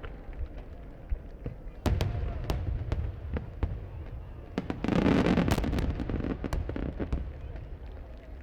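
Fireworks shells bursting, with scattered sharp cracks throughout, a strong report about two seconds in, and a loud, dense volley of bursts about five seconds in.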